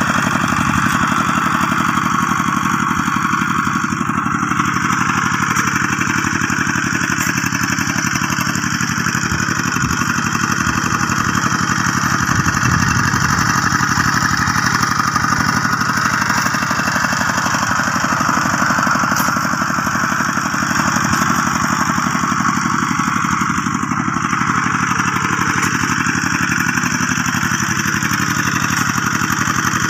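Two-wheel walk-behind rice tractor's single-cylinder diesel engine running steadily under load as it tills the field, with a fast, even chug.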